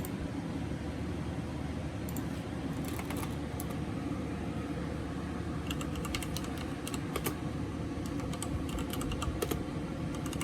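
Typing on a computer keyboard: scattered keystrokes in short clusters over a steady low hum of room or fan noise.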